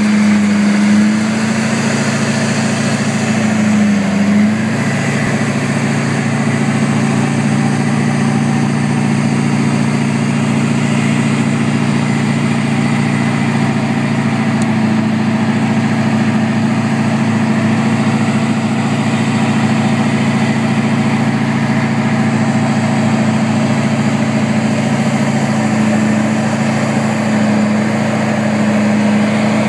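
Steady drone of road travel at speed: engine and tire noise with wind rush, heard from beside a lifted Duramax diesel pickup rolling on 40-inch mud-terrain tires. The drone holds even, with a brief wobble about four seconds in.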